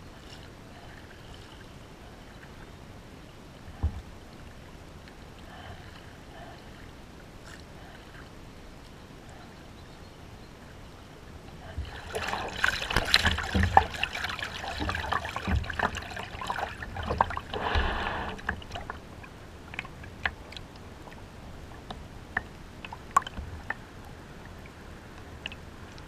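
Water splashing and trickling against a kayak, with a single knock about four seconds in, a stretch of heavier splashing about halfway through, and scattered drips and ticks after it.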